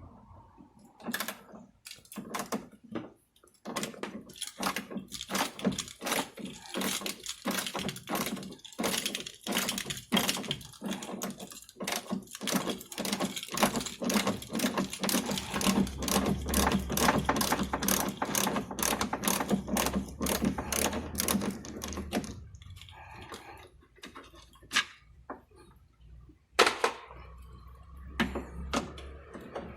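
Hand ratchet clicking rapidly as a fastener in the car door is turned, in quick runs of ticks. A low hum sits under the clicking for several seconds midway, and the clicks thin to a few knocks near the end.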